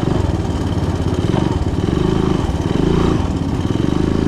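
Three-wheeler ATV engine running steadily in low gear, with a rapid even firing pulse.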